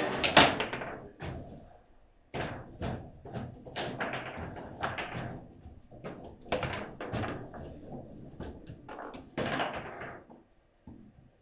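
Table football in play: hard knocks and clacks as the ball is struck by the figures and the rods are worked, coming in quick clusters. The loudest burst is right at the start, with a short pause about two seconds in.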